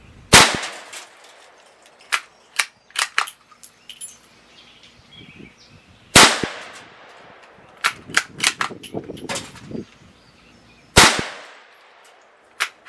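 .22 Magnum (22 WMR) rifle fired three times, about five seconds apart, each a sharp crack with a short trailing echo, with lighter clicks in between the shots.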